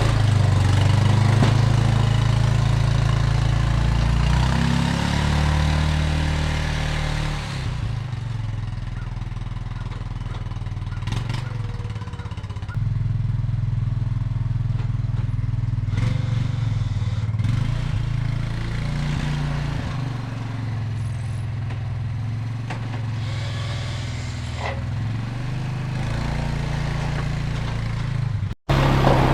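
Husqvarna garden tractor engine running while plowing snow, its pitch and loudness shifting several times as the load changes.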